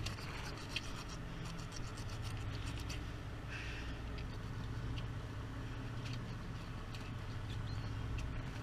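Wet scraping and rubbing as hands and a knife work through a freshly caught tuna's gills, with small scattered ticks over a steady low drone.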